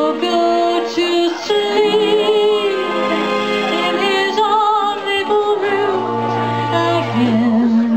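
Woman singing a 1940s wartime-style song into a handheld microphone over a backing track, holding sustained notes with vibrato.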